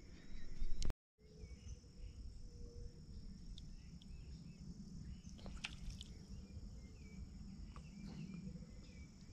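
Quiet riverside ambience: insects keep up a steady high-pitched drone with faint chirps over a low rumble, and a few light clicks of handling. A short louder rustle in the first second breaks off abruptly at a cut.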